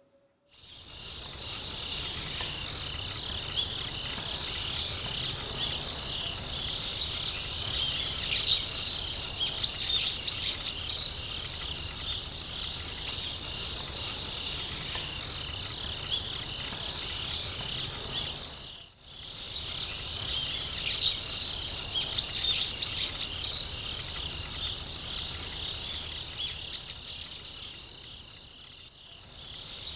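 Woodland ambience: birds giving quick chirping calls in two clusters over a steady high-pitched insect chorus. The ambience drops out briefly about two-thirds of the way through, then resumes.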